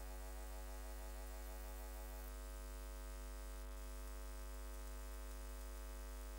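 Faint, steady electrical mains hum: a constant low buzz with no other sound over it.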